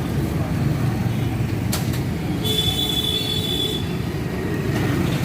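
Steady road-traffic rumble, with a sharp click and then a high squeal lasting about a second, a little after the middle.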